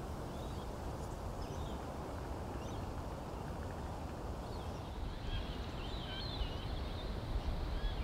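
Faint chirping of small birds over a steady low background rumble, the chirps coming more often in the second half.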